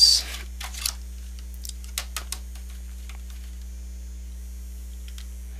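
Clear plastic blister packaging crackling and clicking as it is handled: a loud crinkle at the start, another shortly after, then a few sharp clicks about two seconds in. A steady low mains hum runs underneath.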